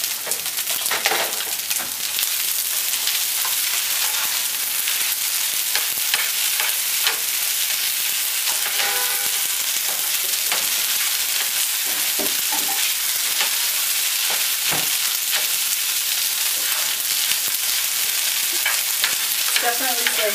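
Stir-fry of wide rice noodles and broccoli sizzling steadily in a hot nonstick skillet, with a spatula scraping and tossing it at intervals.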